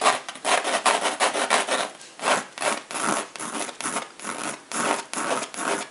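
Pencil scratching across a stretched canvas in quick repeated shading strokes, about three or four a second.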